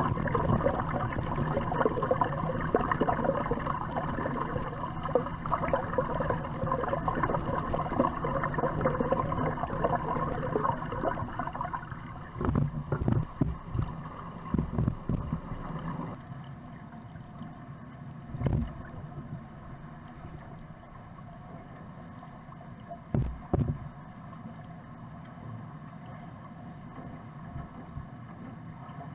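Swimming-pool water heard underwater: a swimmer's strokes and kicks churn the water for the first twelve seconds or so. Several knocks follow around the swimmer's turn at the wall, then a quieter steady underwater hum broken by two single thumps.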